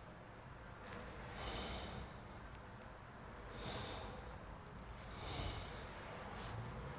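A person breathing audibly through the nose close to the microphone: three soft exhales, about two seconds apart, over a faint steady low hum.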